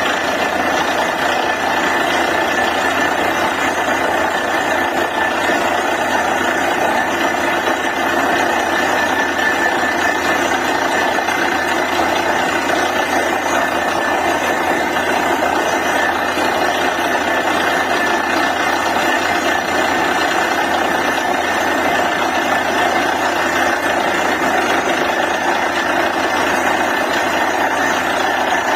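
DTH borewell drilling rig running steadily while drilling: a loud, even machine din with a faint high whine held throughout.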